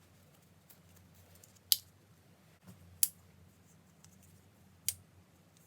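Four sharp, high clicks, irregularly spaced a second or two apart, over a low steady background.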